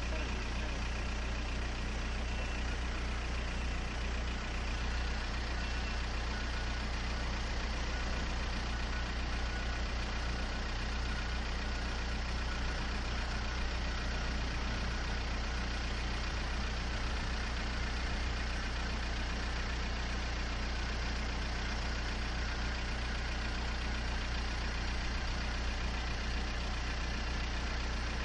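An engine idling steadily, a constant low hum that does not change.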